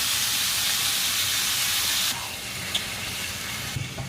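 Strips of beef steak sizzling loudly in hot oil in a frying pan as their moisture cooks off. The sizzle drops off abruptly about two seconds in and again near the end.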